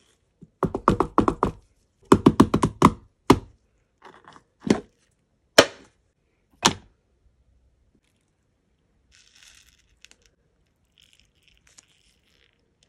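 Sharp clattering knocks from handling a wax warmer's pot and its silicone liner: two quick runs of knocks early on, then single knocks until about seven seconds in. Near the end comes a faint rustling as a gloved hand moves through a pile of hard wax beads.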